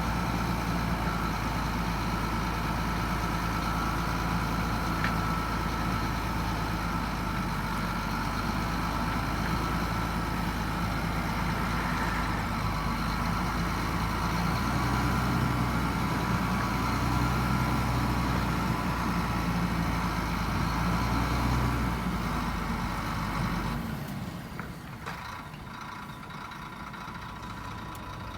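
Diesel engine of heavy earth-moving machinery running steadily, with a thin steady whine above it. About 24 seconds in, the sound drops suddenly to a quieter, thinner engine hum.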